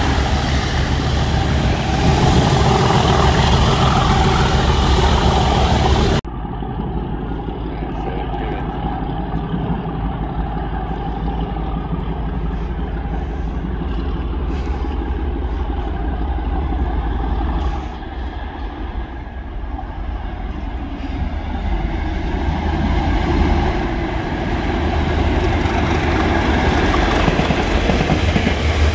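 Class 37 diesel locomotive with its English Electric V12 engine running as it hauls a train of tank wagons close past. The sound cuts off abruptly about six seconds in and is replaced by a quieter engine note from an approaching train, which grows louder in the last few seconds as the wagons pass.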